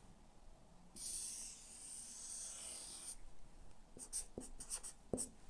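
Marker pen drawing on a flip-chart pad: one long steady scratch as a circle is drawn, then a run of short, quick marker strokes near the end, with a small knock.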